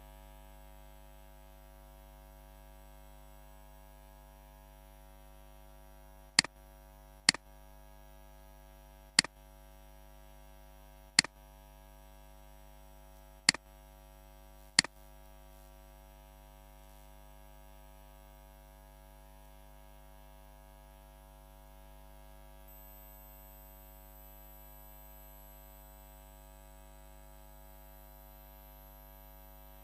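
Steady electrical mains hum, with six sharp computer mouse clicks spaced one to two seconds apart in the first half.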